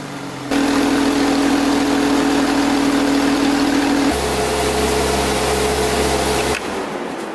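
2017 Porsche 911 Carrera's twin-turbocharged 3.0-litre flat-six idling steadily through its exhaust, its tone changing abruptly about four seconds in, then cutting off about a second before the end.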